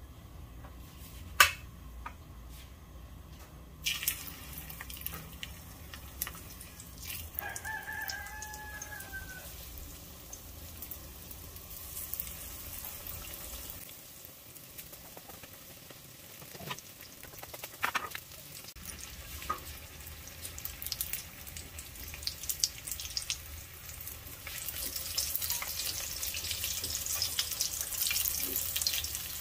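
Breaded fish frying in hot oil, a crackling sizzle that grows louder near the end. A sharp knock comes about a second and a half in, with a few lighter clatters later, and a rooster crows once in the background about seven seconds in.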